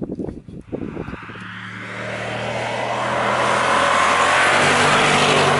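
Bentley Continental GTC's twin-turbo V8 driving toward the camera, its engine note and tyre noise growing steadily louder as it approaches. The first second is wind buffeting the microphone.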